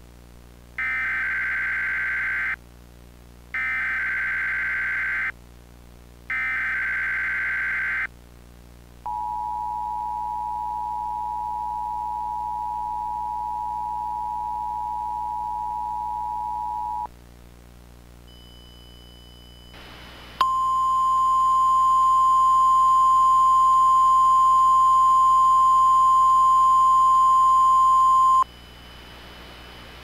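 Emergency Alert System test tones, generated by EAS encoder software with simulated weather-radio static. First come three short warbling data bursts of the SAME header, then the steady two-tone EAS attention signal for about eight seconds. After a brief gap of hiss, the single-tone NOAA Weather Radio warning alarm sounds, loudest of all, for about eight seconds, over a constant low radio hiss.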